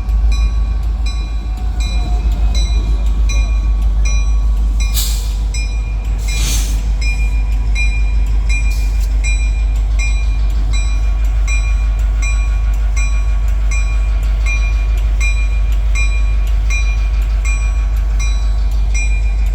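Freight train's diesel locomotives rumbling steadily at a grade crossing while the crossing bell rings about twice a second throughout. Two short hissing bursts come about five and six and a half seconds in.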